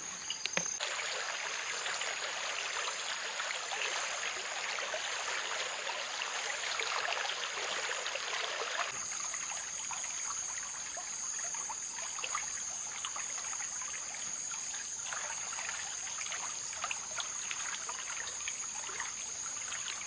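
Shallow creek water trickling and babbling over stones, with a steady high-pitched insect trill behind it. About nine seconds in the water sound thins and the insect trill comes forward.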